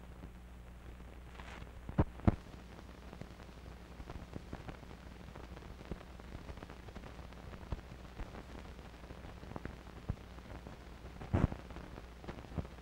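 Soundtrack noise of an old film print: a steady low hum under a faint crackle of scattered clicks, with two louder pops about two seconds in and another near the end.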